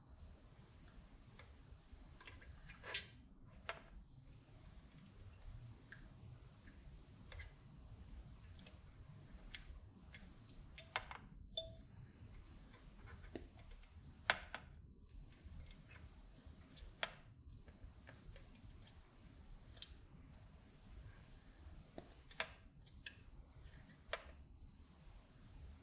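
Faint, scattered light clicks and taps of hand-soldering on a printed circuit board, as the soldering iron tip and solder wire work the component leads. The sharpest click comes about three seconds in.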